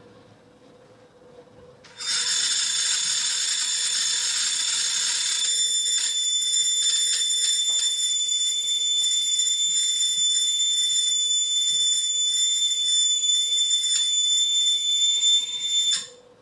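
Prepared, amplified hurdy-gurdy giving a loud, shrill drone of several steady high tones over a hiss. It starts suddenly about two seconds in, the hiss thins out a few seconds later while the high tones hold, and it cuts off abruptly near the end.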